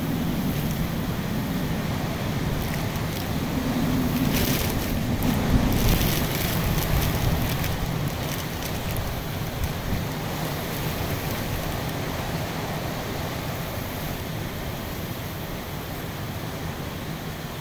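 Hurricane-force wind with wind-driven rain, the gusts buffeting the microphone with a low rumble. The gusts build to their strongest about five or six seconds in, then ease off slowly.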